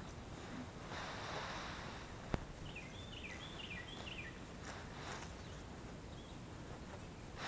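A small bird calling a quick run of five or six short, falling chirps about three seconds in, over steady outdoor background noise, with one sharp click just before the calls.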